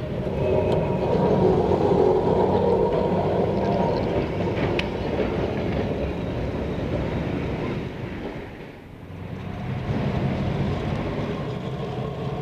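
Electric street tram running along its rails, with one sharp click about five seconds in; the sound fades briefly around nine seconds, then returns.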